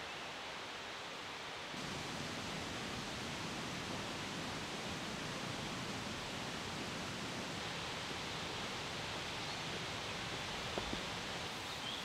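Steady soft rushing hiss of forest ambience that steps up slightly about two seconds in, with a faint tick or two near the end.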